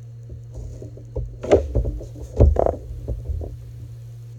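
Handheld ultrasonic welder gun spot-welding an overlapped woven plastic egg belt. From about a second in there is a cluster of short knocks and brief buzzes lasting about two seconds, over a steady low hum.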